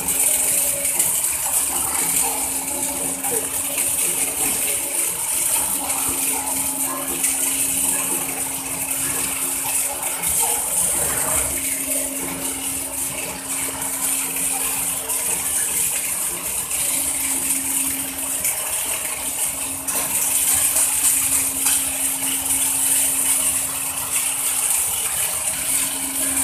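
Mechanised welding heads welding a pipeline joint: the arcs give a continuous hissing crackle over a steady machinery hum that breaks off briefly a few times.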